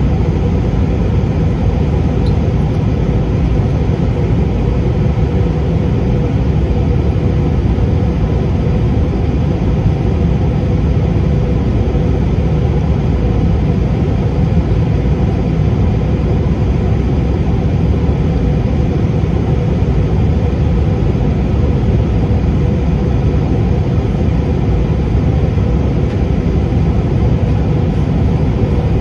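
Steady low noise inside a jet airliner's cabin during the climb after takeoff: the underwing turbofan engines and rushing airflow heard from a window seat over the wing, with a faint steady hum.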